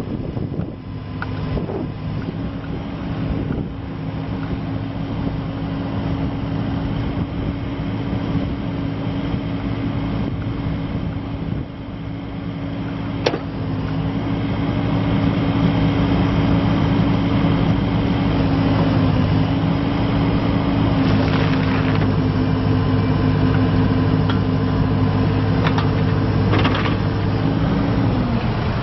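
Diesel engine of a 2012 Volvo BL60B backhoe loader running steadily, louder from about halfway through, with a sharp click about 13 seconds in and the engine pitch dropping just before the end.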